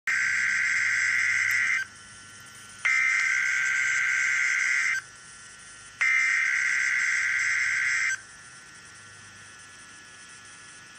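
Emergency Alert System SAME header: three bursts of harsh, buzzy digital data tones centred around 1.5 to 2 kHz, each about two seconds long and a second apart, the last ending about eight seconds in, followed by faint hiss.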